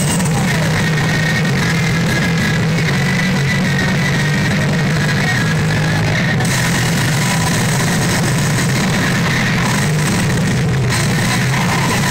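P Ultra 6 Brothers pachinko machine playing loud rock-style music with its effect sounds during a reach presentation.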